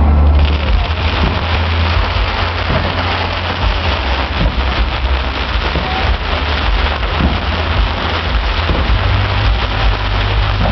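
Fireworks crackling densely, a fast hail of small pops over a continuous low rumble of bursts.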